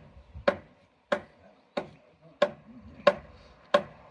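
Hammer blows driving a heavy timber sill into place: about six evenly spaced strikes, one every two-thirds of a second, each with a short ring. The sill is creeping slowly along under the blows.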